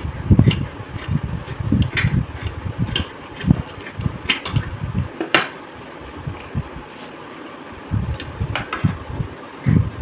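Scissors snipping and rustling through a woven plastic fertiliser sack as its edges are trimmed, a string of short sharp cuts over an uneven low rumble.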